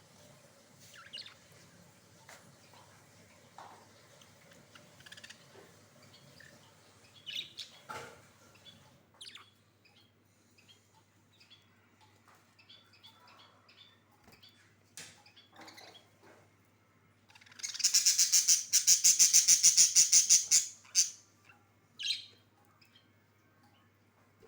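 Budgerigars chirping in short scattered calls, then a loud run of rapid, evenly repeated chirps, about nine a second for roughly three seconds, a little past the middle.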